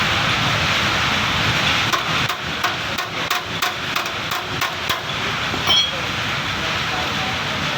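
A hammer tapping on metal: about ten sharp strikes over three seconds, roughly three a second, with a brief metallic ring after them, over a steady hiss.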